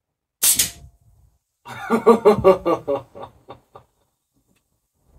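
An air rifle fires a single sharp shot. About a second later the steel bison spinner target is struck and spins, clanking and ringing on each turn at first about five times a second, slowing and dying away.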